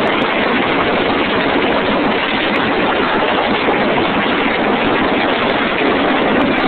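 Loud, steady roar of an arena crowd mixed with the rush of stage pyrotechnic spark fountains, heard through a phone microphone with poor, distorted sound.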